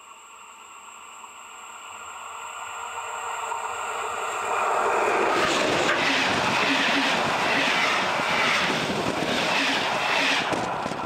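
Passenger train headed by a ČD class 362 electric locomotive approaching, its noise swelling steadily for about four seconds. The locomotive and coaches then roll directly overhead, with loud wheel rumble and a rhythmic clatter of wheels over the rails.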